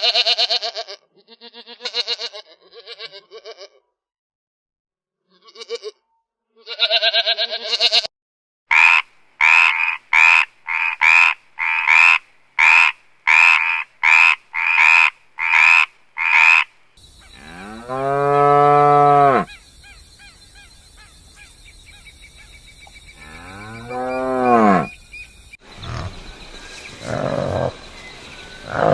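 Several animal calls edited one after another: short calls, then a quick run of about fourteen evenly repeated calls, then a cow mooing twice with long, low calls.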